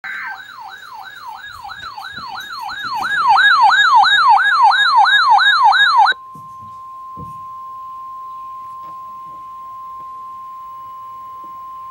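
A warbling siren alarm, rising and falling about three times a second, grows louder about three seconds in and cuts off about six seconds in. It gives way to the steady, single-pitched NOAA Weather Radio warning alarm tone, which signals that a warning is about to be read.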